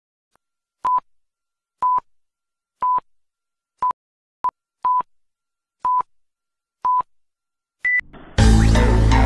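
Electronic countdown beeps: a short beep of one steady pitch about once a second, eight times, then one higher beep. Loud electronic music starts straight after, near the end.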